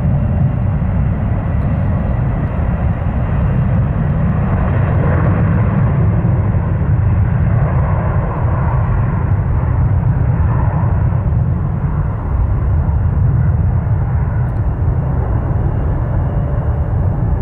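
Airbus A300-600 freighter's twin jet engines at takeoff power: a loud, steady low rumble of a departing heavy jet, swelling a little in the middle range partway through.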